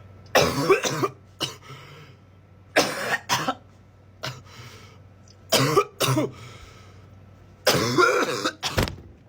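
A person coughing in repeated fits, about every two seconds, with a short low thump near the end. The coughing follows a deep hit from a disposable vape held until it blinks.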